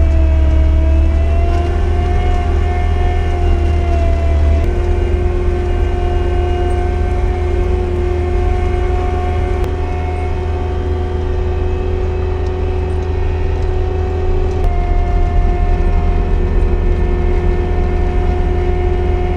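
Skid steer's diesel engine running steadily under load while plowing snow. Its note shifts up and down in steps a few times, near the start, a few seconds in, and again about three-quarters of the way through.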